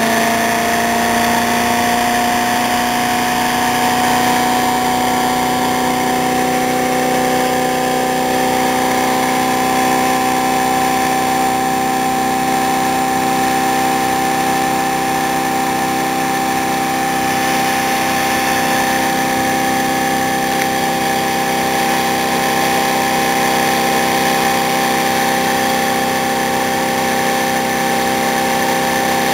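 Homemade iron-core axial flux pulse motor running, its rotor disc spinning. It makes a steady whine of several tones that rises slightly in pitch over the first few seconds and then holds.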